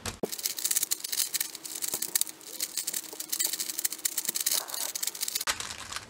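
GAN 356 X 3x3 speed cube being turned quickly by hand, a dense, steady run of small plastic clicks as the layers are scrambled. The clicking stops about half a second before the end.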